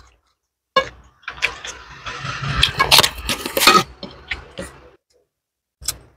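Eating crispy fried gourami by hand: a run of crackles and clicks over light crunching from about one to five seconds in, then a single click near the end.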